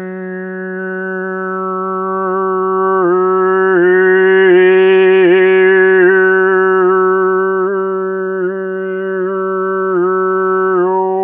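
A man holding one low, steady vocal drone on an 'ah' vowel, shaping it so that different overtones ring out above the note: overtone (harmonic) chanting. The tone grows brighter and louder towards the middle, then eases back.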